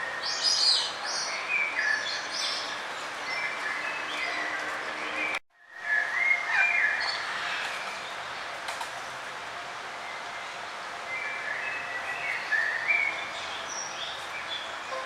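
Several forest birds chirping and singing in short phrases over the steady rush of a flowing river. The sound drops out completely for a moment about five seconds in.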